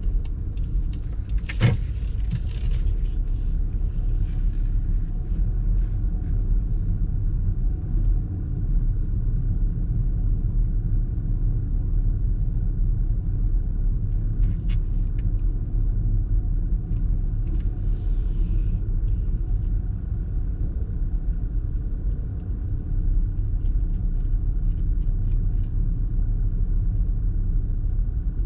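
Car driving on city streets: a steady low rumble of road and engine noise, with a sharp knock about a second and a half in, scattered light ticks, and a brief hiss about 18 seconds in.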